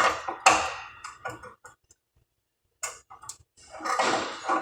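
Snap-on FM140A MIG welder's arc crackling and sputtering in short, broken bursts, with a gap of silence in the middle, a few sharp clicks, then a swell of hiss near the end. The steel is galvanized, which the welder takes to be why the weld is not working well.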